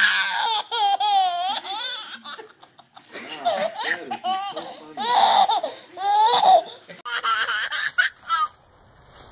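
A baby laughing hard in repeated bursts of giggles and high squeals. Near the end another baby's laughter takes over.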